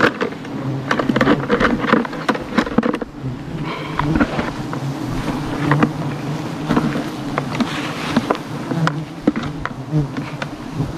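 Swarm of giant honey bees buzzing around the nest: a steady low hum, with many short clicks and rustles scattered through it.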